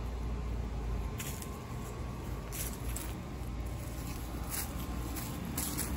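Footsteps, about six soft, crunchy steps at an uneven pace, over a steady low rumble of wind on the microphone.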